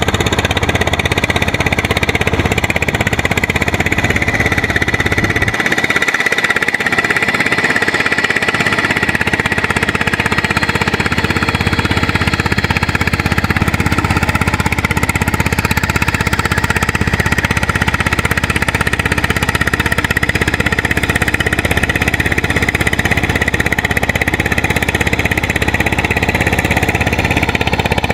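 Single-cylinder diesel engine of a farm cultivator running steadily with a fast knocking beat while it works through the paddy mud.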